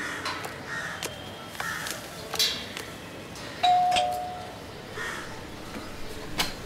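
Footsteps of heeled shoes climbing stone steps, then a doorbell rings once about three and a half seconds in: a single clear tone that fades away over about a second.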